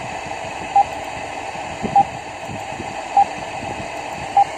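Four short, high beeps evenly spaced about 1.2 seconds apart over a steady hum and hiss: an alarm beeping from an engine-room simulator console.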